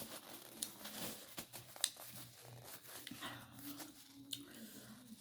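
Close-up mukbang eating sounds: chewing and handling food, with crackly noises and many scattered sharp clicks.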